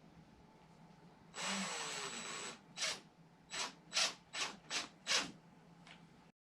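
Power drill driving a screw: one run of about a second, then about six short trigger bursts as the screw is snugged down.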